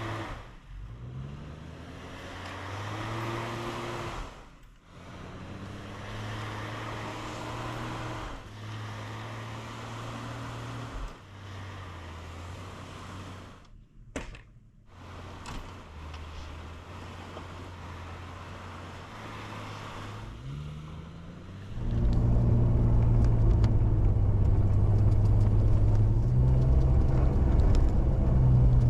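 Old Jeep Cherokee's engine running as it pushes snow with a plow blade. Its pitch shifts in steps, with a few abrupt breaks, and about three quarters of the way through it gets much louder under heavier load.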